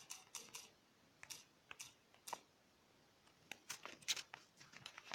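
Faint, irregular clicks of typing on a phone, in short groups with a quicker flurry of taps near the end.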